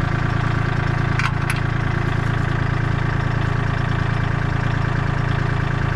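Kubota compact tractor's diesel engine idling steadily, with two short clicks a little over a second in.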